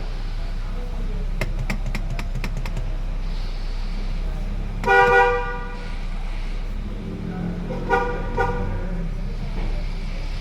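Nissan Evalia's car horn sounding: one loud blast about five seconds in, then two short toots about three seconds later. The horn works, with a new steering-wheel flexible cable (clock spring) fitted. A run of light clicks comes a couple of seconds before the first blast.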